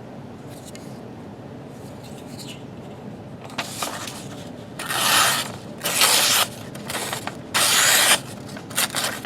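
Spyderco Tenacious knife blade making a series of slicing strokes. Each is a short raspy hiss of about half a second, coming roughly once a second from a few seconds in, as the factory edge is shown to be sharp.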